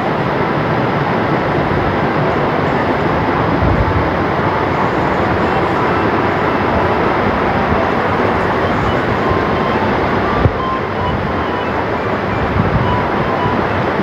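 Waterfall and its stream rushing close by: a loud, steady noise of falling water that eases slightly about ten seconds in.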